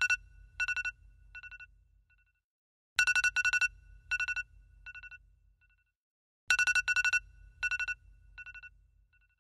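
Alarm clock ringing in bursts of rapid bell strokes, a new burst about every three and a half seconds. Each burst is followed by quieter, shorter repeats that fade away before the next.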